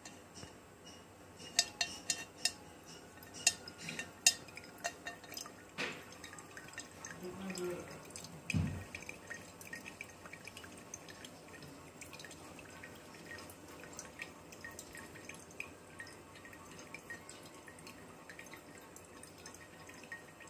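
Water from a small aquarium filter's return dripping and trickling into a glass fish bowl. Several sharp drips land in the first six seconds and a low thump comes about eight seconds in, then a faint steady trickle with small drips.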